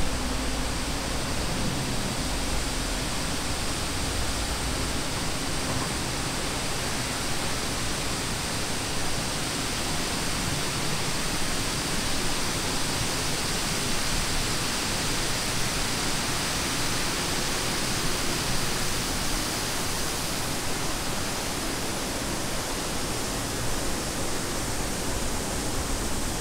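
Steady rushing noise spread evenly from low to high pitch, with no distinct events.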